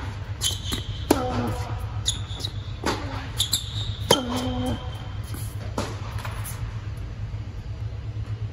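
Tennis rally on an indoor hard court: sharp pops of racket strikes and ball bounces, several a few seconds apart, stopping after about six seconds. A steady low hum runs underneath.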